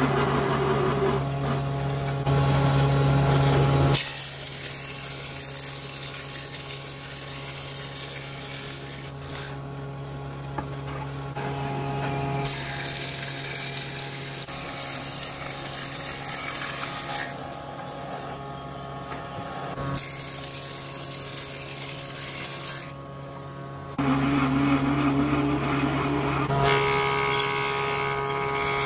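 Electric woodworking planer machines running: a steady motor hum with a set of even tones, and stretches of loud hiss from the cutter head that start and stop abruptly every few seconds.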